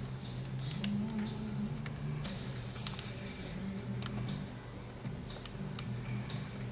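Lock pick and tension wrench working the pins of a Burg padlock during single pin picking: scattered, irregular sharp light clicks of metal on metal, over a steady low hum.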